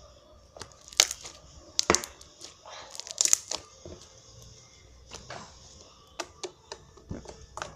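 Slime being handled, stretched and pressed, giving irregular sticky clicks, snaps and tearing sounds, the loudest about one, two and three seconds in.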